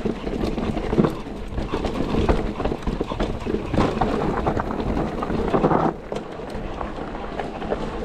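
Mountain bike clattering down a rough enduro trail: tyres striking rocks and roots and the bike's chain and frame rattling in quick, irregular knocks. A louder, rougher stretch of noise begins about four seconds in and drops off suddenly about two seconds later.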